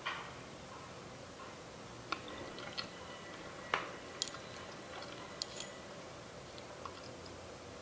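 Miniature metal fork and spoon tapping and scraping against a small ceramic plate while mixing stew into rice: a few light, scattered clinks and clicks, the sharpest just under four seconds in.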